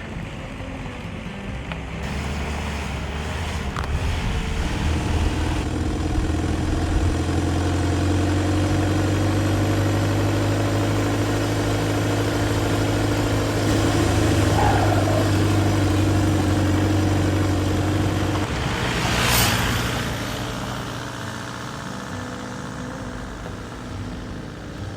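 1985 Volkswagen Vanagon's flat-four engine running steadily under way, with a slow rise in engine note. About 19 seconds in, the engine tone drops away and a rushing whoosh swells and fades.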